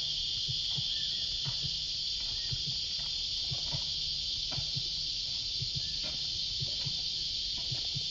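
Cicadas in full summer chorus: a steady high-pitched shrill hiss that does not let up, with faint irregular ticks underneath.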